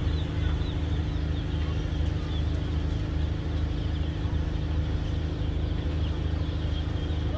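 Steady low drone of a moored fast ferry's diesel engines running at idle, even in level and pitch throughout.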